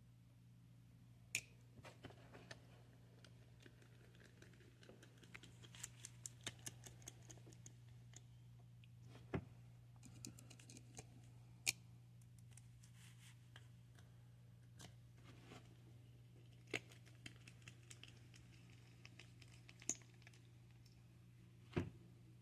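Faint, scattered clicks and ticks of small screws and RC beadlock wheel parts being handled and fitted, with a run of quick ticks about six seconds in and a few sharper single clicks, over a steady low hum.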